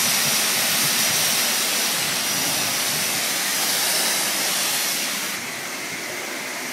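High-pressure car wash wand spraying a jet of water, a steady loud hiss. It drops to a lower level about five seconds in.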